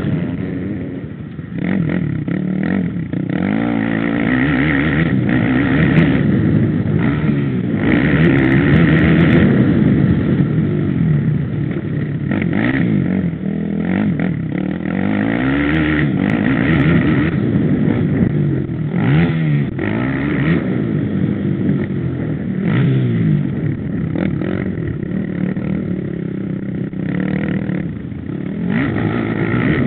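Dirt bike engine at speed, revving up and falling back again and again as the rider works the throttle and gears on a rough dirt trail.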